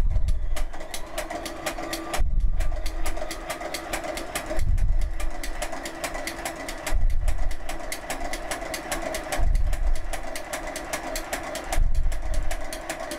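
Circular linker (kettle machine) running as it chain-stitches the knitted edges together on its needle dial: a rapid, even clicking, with a low thump about every two and a half seconds.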